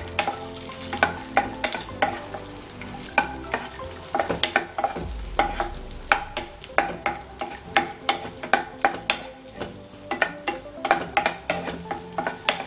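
Wooden spatula stirring cashews and raisins frying in ghee in a nonstick pan: a steady run of knocks and scrapes against the pan, two to three a second, over a light sizzle.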